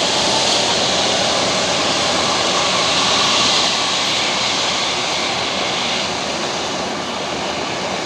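Jet engines of a Boeing 757-300 airliner running steadily as it rolls past: a loud, even rushing hiss, brightest in the upper range, easing slightly after about six seconds.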